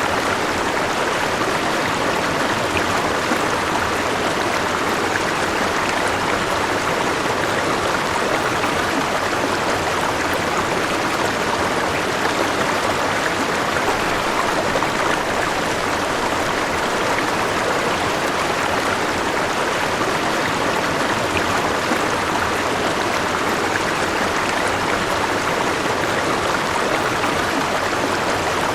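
River water flowing over rocks, a steady rushing and babbling.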